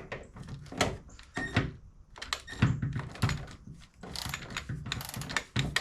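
Irregular metallic clicks and knocks from a hand wrench and socket working on the door hinge bolts of a 1970 Chevelle, loosening them.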